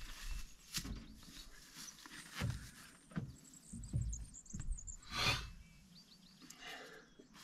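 Small birds chirping in a quick high series over scattered light knocks and rustling from someone moving around, with a brief louder rustle a little after five seconds in.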